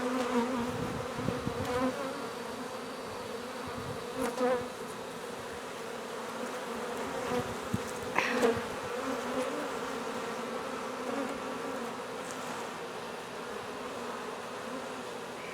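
A colony of honey bees buzzing: a steady, slightly wavering hum of many bees, with a few brief knocks from the comb being handled.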